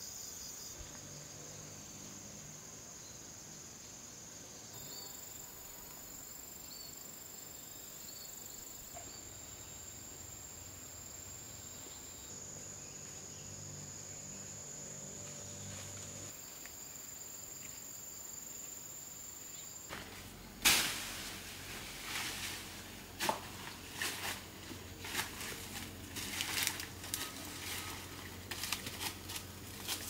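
Insects chirring steadily at a high pitch, the chorus shifting abruptly several times. About two-thirds of the way through, a run of irregular sharp knocks and clicks starts and carries on to the end, louder than the insects.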